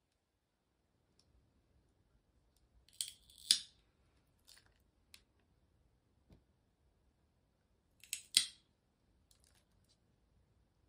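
Cat nail clipper cutting a cat's claws: two snips, one about three seconds in and one about eight seconds in, each a quick pair of sharp clicks.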